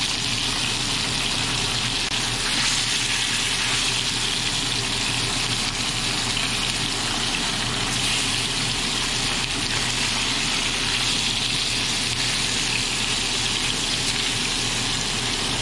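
Steelhead trout fillets sizzling steadily in hot vegetable oil in a frying pan on high heat, an even hiss.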